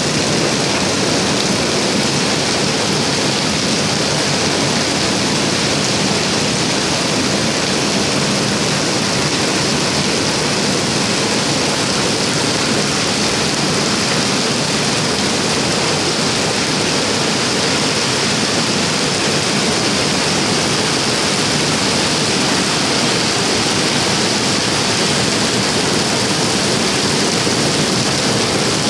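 Rain falling steadily, a loud, even hiss with no let-up.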